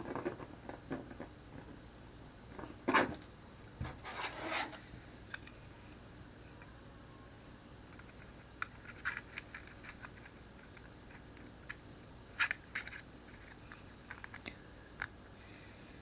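Scattered small clicks and short scrapes of a BlackBerry Curve 8520 being taken apart by hand with small screwdrivers and prying tools. The louder scrapes come about three and four seconds in, and a sharp click comes near the two-thirds mark.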